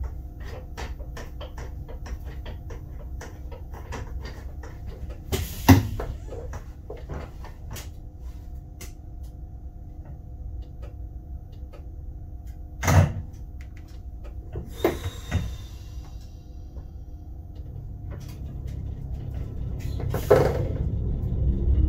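Cab of an SBB RBDe 560 'Domino' multiple unit: a steady low rumble with even clicking at about two clicks a second for the first several seconds. A few sharp knocks stand out, and the rumble grows louder near the end.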